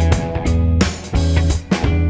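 Background music: plucked guitar over a steady bass line and beat.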